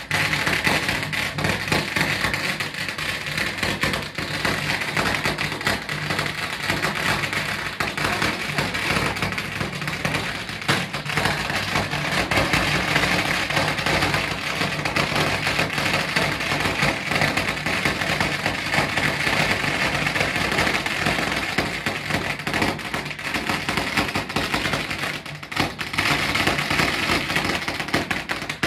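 A long string of firecrackers burning down, a continuous rapid crackle of small bangs that runs on without a break.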